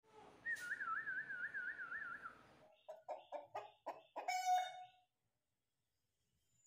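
Parrot-beak aseel rooster giving a quick run of about six short clucks that ends in a longer drawn-out call. This comes after a high warbling tone that wavers up and down about four times a second for the first two seconds.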